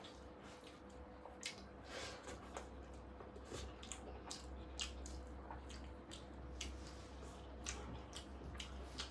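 A person chewing food close to the microphone: many irregular, wet smacking clicks over a faint steady hum.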